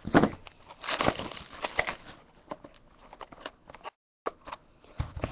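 Cardboard mini box of trading-card packs being opened by hand: a run of crackling, crinkling and tearing. The sound drops out to silence for a moment about four seconds in.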